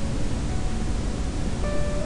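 Steady loud hiss from the recording's microphone and noise floor. Faint held musical tones sit under it, with one clearer held note near the end.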